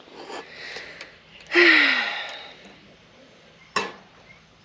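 A person's loud breathy exhale with a falling voiced tone, about a second and a half in, then a single sharp click near the end.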